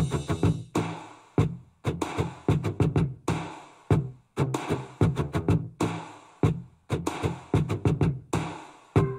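Electronic music with a drum-machine beat and heavy bass notes, playing through a soundbar with an integrated subwoofer. It comes in short choppy phrases with brief gaps between them. The owner says it sounds pretty bad: the treble is passable, but the bass sounds like farts.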